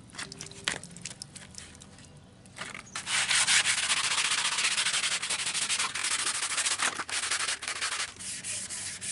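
Wet sanding of a fiberglass panel with sandpaper on a hand block, under running water: a few scattered scrapes at first, then about five seconds of rapid, steady back-and-forth rubbing that starts about three seconds in and eases near the end.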